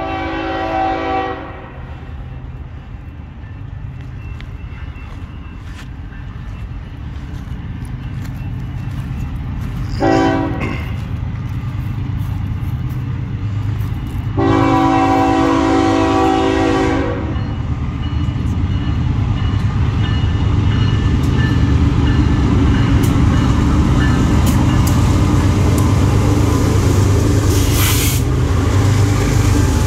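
Horn of an approaching BNSF freight's lead GE ES44AC locomotive sounding three times: a blast at the start, a short one about ten seconds in, and a long one lasting a couple of seconds. Under it the diesel engines of the four-unit GE locomotive consist rumble, growing steadily louder as they come close and pass, loudest over the last several seconds.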